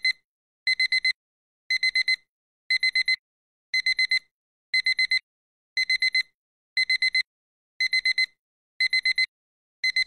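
Digital alarm clock going off: groups of four quick high beeps, about one group a second, repeating steadily.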